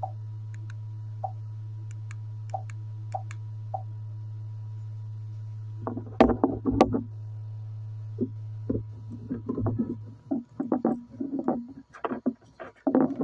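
Steady low electrical hum of the LED mini projector running, with five short clicks over the first four seconds as the TV box's remote is used. From about six seconds in, irregular loud knocks and rustling noises take over.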